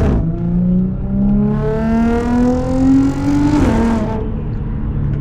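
Audi S4's supercharged V6 with an AWE Touring exhaust accelerating, its pitch climbing steadily through a gear. About three and a half seconds in, it drops sharply on an upshift, then runs steady at lower revs.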